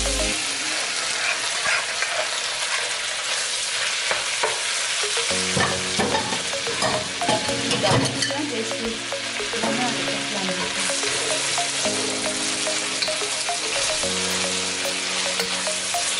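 Bell peppers and cooked chicken mince sizzling in a hot metal wok while a spatula stirs them, with a run of scraping and clacking against the pan about halfway through.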